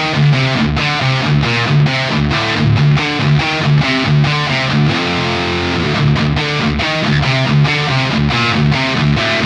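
Distorted electric guitar played through a Peavey 6505 1992 Original tube amp: a fast riff of short repeated notes, with one chord left ringing about five seconds in.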